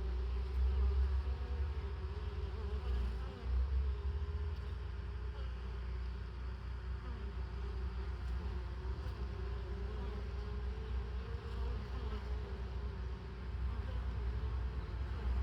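Honeybees buzzing in numbers around the hive entrance, a steady, wavering hum of many wingbeats, over a low rumble.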